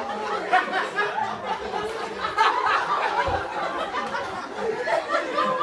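A roomful of people laughing together, with scattered hand clapping and some overlapping voices.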